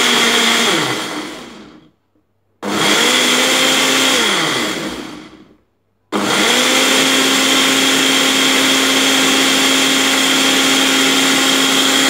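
Countertop blender motor blending chopped fruit and water into juice in short pulses: it runs, winds down with a falling pitch about a second in, starts again, winds down again, then starts once more and runs steadily.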